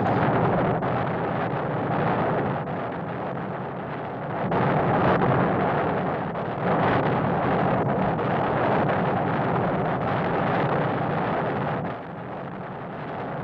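7.62 mm M134 minigun in an XM-18 pod under a Huey Cobra's stub wing, firing in sustained bursts: a dense, continuous roar that swells and eases several times and drops lower about twelve seconds in.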